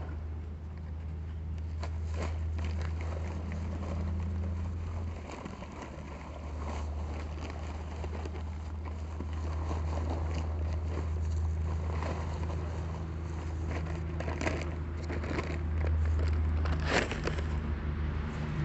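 Paper bag of dry Quikrete concrete mix crinkling and dry mix scraping and pattering into a fence-post hole as it is poured and worked by hand, in irregular crackles and scrapes. Under it runs a steady low hum, like an idling engine.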